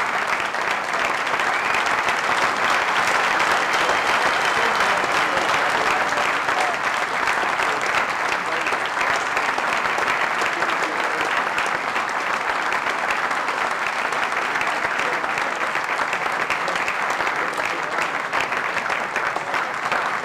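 A large audience applauding, with steady, sustained clapping.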